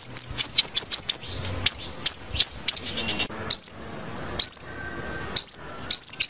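Sunbird calling: a loud series of sharp, very high chirps, each sweeping quickly upward in pitch. They come in a fast run at first, slow to single chirps about a second apart, then speed up again near the end.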